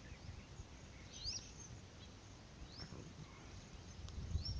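Quiet outdoor background: a few short, high bird chirps, about a second in, near three seconds and again near four seconds, over a faint low rumble.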